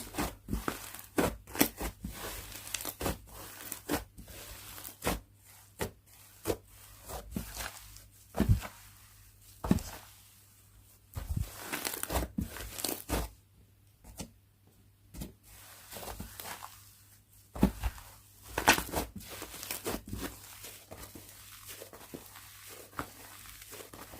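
Slime being squeezed, stretched and pressed by hand, giving an irregular run of sharp pops, clicks and crackles from air bubbles in the slime, with a brief quieter stretch about halfway through.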